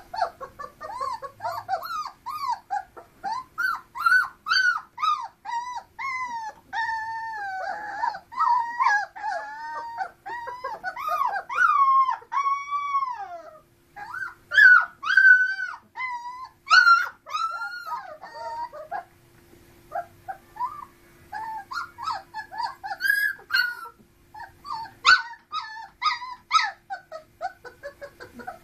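Three-week-old puppies whining and squealing in a rapid run of short, high-pitched cries, with a brief lull about two-thirds of the way through. A faint steady hum sits underneath.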